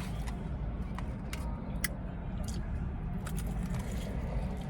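Steady low rumble of a car's cabin, with about eight small, sharp clicks and crackles scattered through it from eating and handling food.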